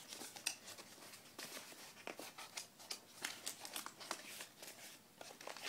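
Faint rustling and scattered light clicks of a small cardboard box being handled and its flap opened by hand.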